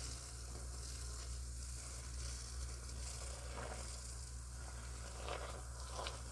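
Log sawmill running and cutting, heard as a steady hiss over a constant low motor hum.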